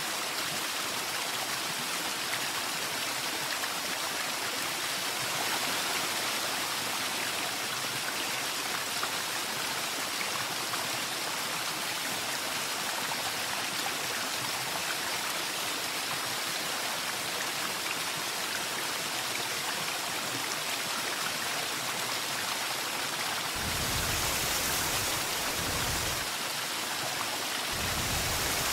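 Steady rush of running water, like a stream or falling water. A low rumble comes in twice near the end.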